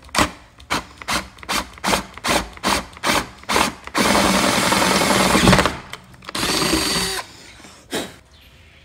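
Power drill with a gold twist bit enlarging a bolt hole through a plastic duckbill spoiler: a string of short trigger pulses, two or three a second, then a steady run of about two seconds and a shorter one after it. A single click near the end.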